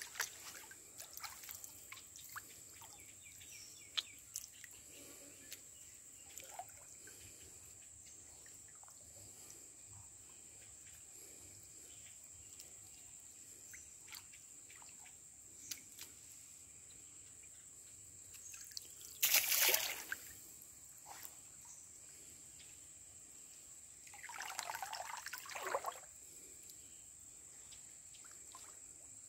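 Water trickling and lightly splashing as hands work in a shallow river, with small drips throughout. There are two louder splashes, one at about nineteen seconds and a longer one around twenty-five seconds.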